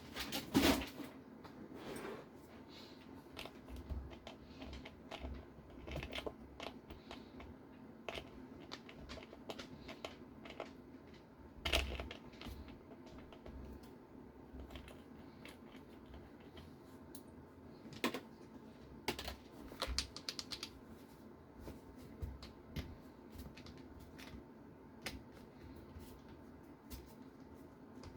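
Faint handling noise of small RC car parts on a workbench: scattered light clicks and rustles, with a few louder knocks, over a faint steady hum.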